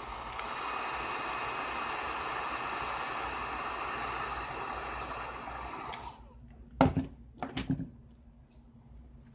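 Hot-air heat gun blowing steadily to soften the adhesive under an iPad's glass digitizer, switched off about six seconds in. A few sharp knocks follow.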